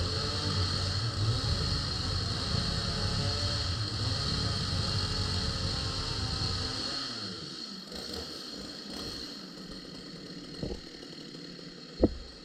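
Stihl two-stroke chainsaw idling, then shut off about seven seconds in, its engine winding down to a stop. After that a couple of short knocks, the loudest a sharp one near the end.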